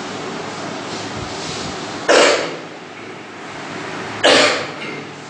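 A man coughing twice, about two seconds apart, each cough short and loud, over a steady background hiss.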